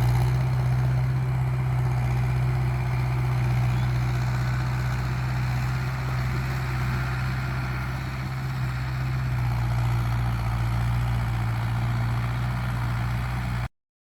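International 276 tractor's diesel engine running steadily, a low even hum that stops abruptly near the end.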